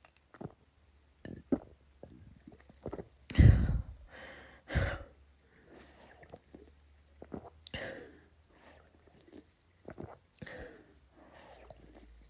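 A person drinking soda close to the microphone: a string of swallows and breaths, with two loud, deep gulps about three and a half and five seconds in.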